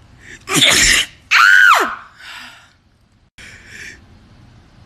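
A person's sneeze: a sharp burst of breath about half a second in, then a loud, high voiced cry that falls steeply in pitch, followed by a couple of softer breaths.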